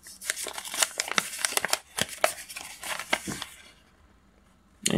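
Folded paper instruction leaflet being unfolded and smoothed out in the hands: a quick run of paper rustles and crackles that stops about three and a half seconds in.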